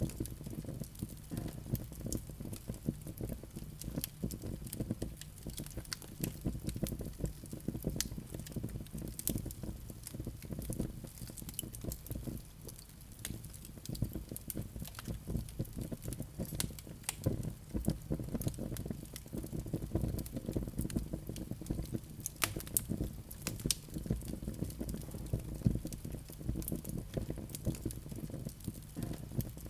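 Fireplace fire of glowing coals crackling, with frequent irregular sharp pops over a low steady rumble.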